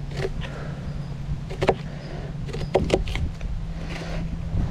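Kitchen knife chopping an onion on a paper plate on a wooden picnic table: a handful of irregular knocks, over a steady low hum.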